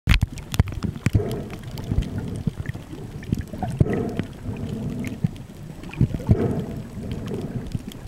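Muffled underwater sound picked up through a camera's waterproof housing: a low rumble of moving water, many sharp clicks and knocks, and a swell of noise about every two and a half seconds.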